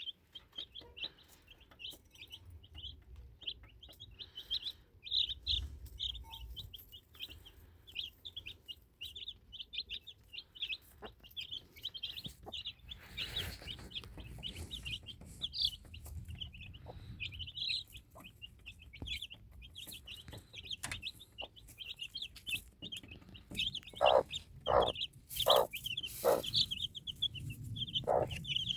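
A brood of four-day-old Woorimatdak (Korean native chicken) chicks peeping continuously in rapid high chirps, with the mother hen giving about five low clucks near the end, louder than the peeping. A brief rustle about halfway through.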